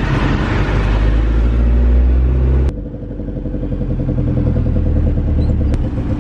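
Car engine and road noise heard from inside a moving taxi cab, running steadily. The sound changes abruptly about two and a half seconds in to a quieter, steadier hum.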